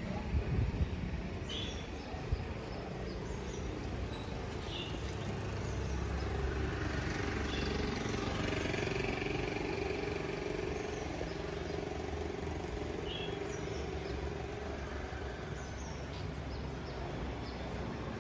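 Road traffic rumbling steadily, swelling as a vehicle passes about halfway through, with short bird chirps every few seconds.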